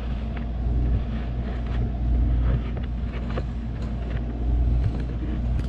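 A steady low mechanical hum, with a few faint scattered clicks.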